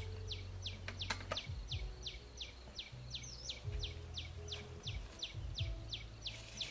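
A bird calling over and over, a short high falling whistle about three times a second, over a low rumble. Two sharp clicks come about a second in.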